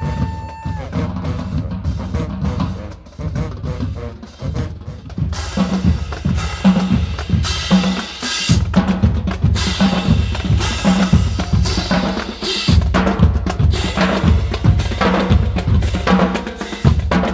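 Marching band drumline playing a cadence: snare drums and bass drums beating steadily, getting louder and sharper about five seconds in. A held brass note ends in the first second.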